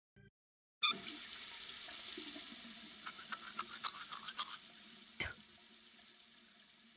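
A soft, watery hiss starts suddenly about a second in and slowly fades, with scattered faint clicks and one sharper click near the end: a cartoon sound effect.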